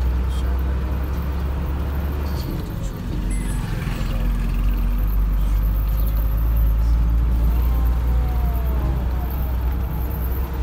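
Loaded truck's engine droning steadily inside the cab while driving, with road noise. The low drone eases briefly about two and a half seconds in, then picks up again.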